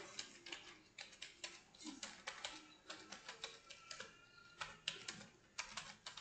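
Computer keyboard keys clicking faintly as a line of text is typed, in quick uneven runs with a short pause a little past halfway.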